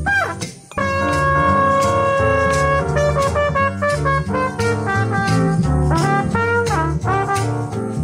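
Small jazz band playing, with trumpet and saxophone leading over upright bass and keyboard. After a short break just after the start, the horns hold a long chord for about two seconds, then move on to quicker phrases.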